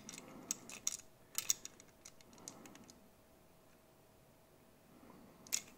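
Faint clicks and taps of fingers handling a small 1/87-scale Siku diecast model truck, several quick clicks in the first second and a half, then a quiet stretch, and a couple of louder clicks near the end.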